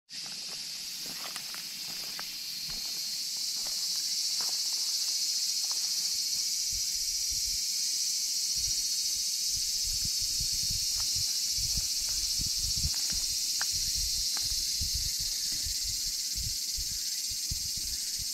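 A steady, high, shrill chorus of insects that swells over the first few seconds. Low knocks and rustles join it from about the middle.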